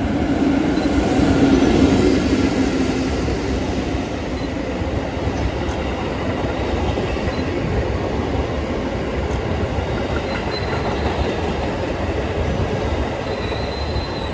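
EF65 electric locomotive passing close by, its hum loudest about two seconds in. The new Tokyo Metro 17000 series cars it is towing then roll past in a steady, loud rumble of steel wheels on rail. A faint high-pitched squeal creeps in near the end.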